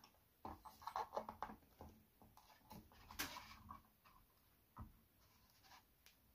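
Faint clicks and rustles of small plastic figure parts being handled and fitted together, mostly in the first three seconds, with a single light tap near five seconds.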